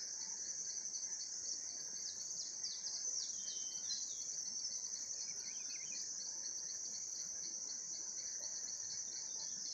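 Steady high-pitched chorus of crickets or similar insects, with a few short bird chirps about two to four seconds in.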